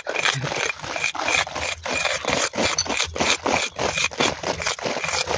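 Quick rubbing strokes of a cloth over a freshly mortared brick wall, about four a second, wiping cement smears off the brick faces.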